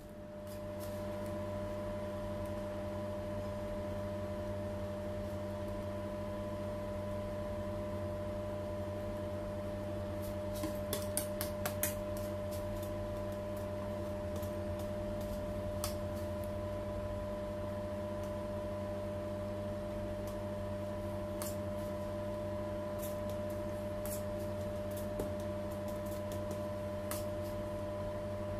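Steady machine hum with a few constant tones, and scattered light clicks and taps of a metal icing spatula, a quick cluster of them about ten to twelve seconds in.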